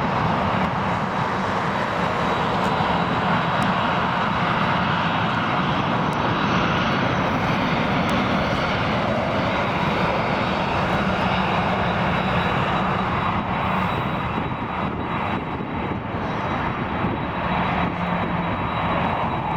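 Jet airliner engines running with a steady, loud roar and a thin, steady high whine.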